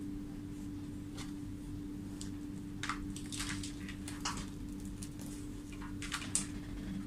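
Faint rustles and light clicks of hookup wires and a plug-in power supply's plug being handled, over a steady low hum.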